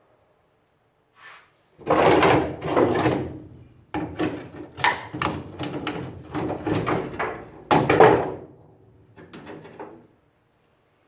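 Rough scraping and knocking as a rusted carriage bolt is worked loose from the truck bed, in several loud, uneven spells.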